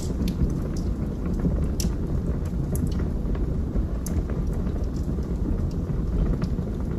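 Wood fire burning in a fireplace: a steady low rumble of flames with a few sharp crackles and pops scattered through.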